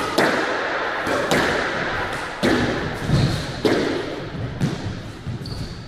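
Squash rally: sharp strikes of the ball against rackets and court walls, about once a second, each with a short echo.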